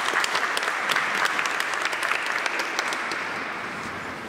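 Audience applauding, many hands clapping, slowly fading toward the end.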